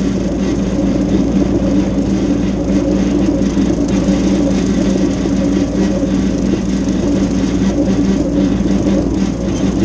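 Mahindra diesel tractor running steadily under load, driving a PTO rotary brush hog that is cutting tall field grass: a constant loud engine and cutter drone.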